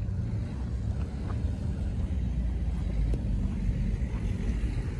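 Low, buffeting rumble of wind on the microphone, steady without any engine tone.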